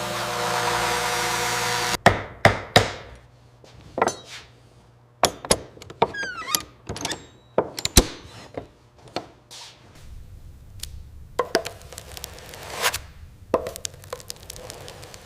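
A machine running steadily with a hum of several tones, cutting off about two seconds in. Then irregular wooden knocks and thuds, with a brief squeak near the middle.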